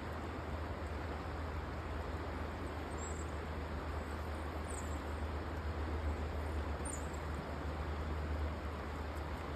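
Creek water rushing steadily over a shallow rocky riffle, with a low rumble underneath. Three brief high chirps, likely a small bird, come about three, five and seven seconds in.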